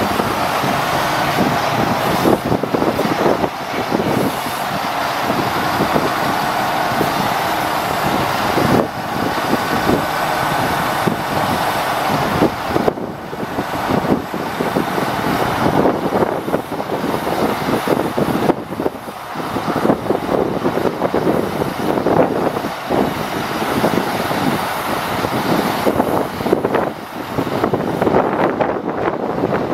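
Caterpillar 3126 inline-six diesel engine of a truck running steadily while it drives the hydraulics of a National articulating crane, raising and unfolding the boom.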